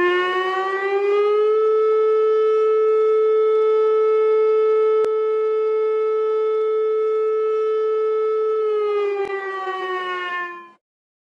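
Civil-defense-style siren wail, one long tone with many overtones: it rises in pitch for about a second and a half, holds steady for about seven seconds, then falls away and cuts off shortly before the end.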